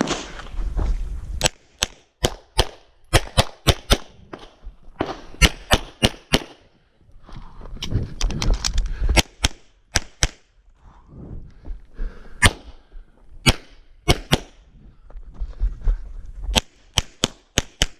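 Pistol fire on a timed practical-shooting stage: about two dozen sharp shots in quick pairs and short strings, with pauses of a second or more between groups.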